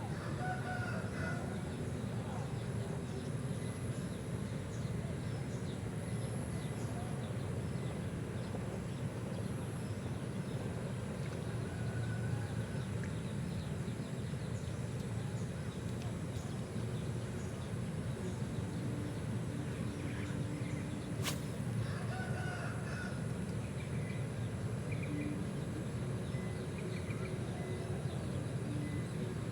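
Outdoor ambience: a steady low rumble with a few faint, short bird calls now and then. A single sharp click comes about 21 seconds in.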